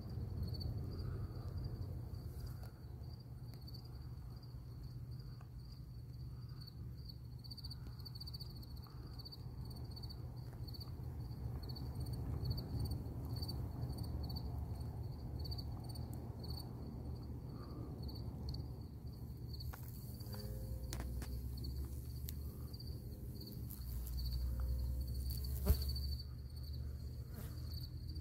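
Insect chirping in a steady train of evenly spaced, high-pitched pulses, over a low steady hum. A single sharp click near the end.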